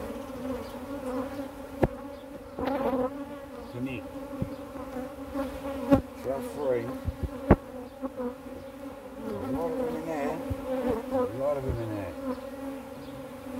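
Honeybees buzzing in a steady hum around an opened hive, with single bees passing close by and wavering in pitch. A few sharp knocks come as the hive is worked.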